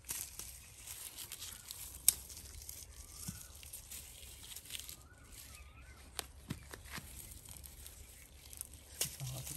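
Rustling and crackling of leafy garden plants being pushed through and handled, with scattered sharp snaps and clicks; the loudest is a single snap about two seconds in.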